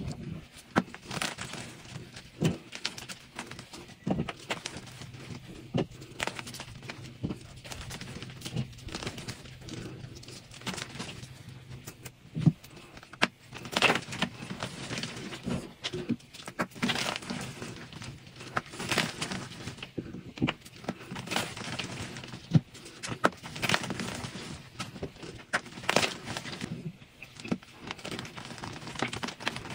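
Dried pasted blocks of gym chalk being crunched and crumbled: an irregular run of crisp crunches and crackles, with a few sharper, louder snaps.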